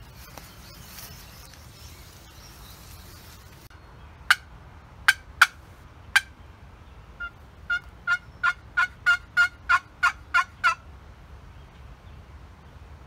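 Turkey hen calls: four sharp single clucks, then a yelping run of about eleven notes at about three a second, growing louder after the first few.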